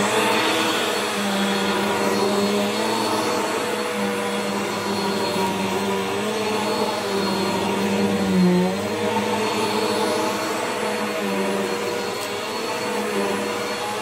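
Bissell PowerForce Helix bagless upright vacuum with its 10-amp motor running steadily while pushed back and forth over thick shag carpet. The motor's pitch dips briefly a little past halfway.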